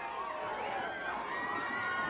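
Arena crowd noise: many voices shouting and yelling at once.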